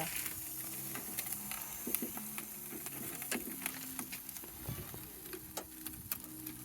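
Faint, irregular crackling and sizzling, as of food cooking on a barbecue grill, over a steady low hum.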